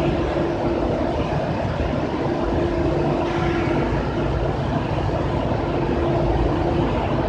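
Sawdust charcoal making machine running: a loud, steady industrial drone with a constant hum.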